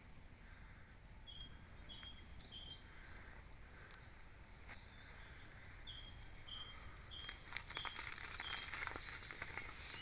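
A small songbird repeating a short two-note phrase, a higher note then a lower one, over and over. In the last couple of seconds a dense run of crackling clicks comes in and is the loudest sound.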